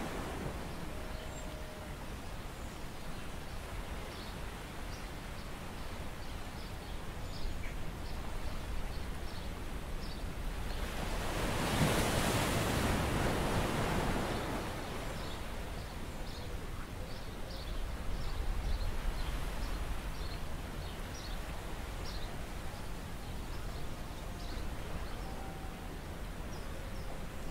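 Steady wind-and-water noise at sea, swelling for a few seconds about halfway through, with faint light clicks and rustles of a nylon gill net being handled as fish are picked out of the mesh.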